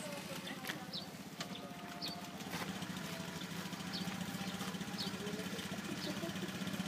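An engine idling: a steady low pulsing drone that grows louder about two and a half seconds in. Short high chirps come about once a second over it.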